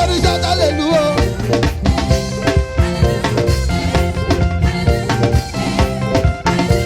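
Live upbeat gospel praise band playing an instrumental groove: a drum kit with kick and snare keeps a steady beat under bass and keyboards.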